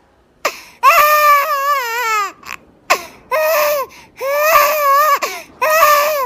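A baby crying: four high-pitched cries with short breaks between them, the first and longest wavering up and down in pitch.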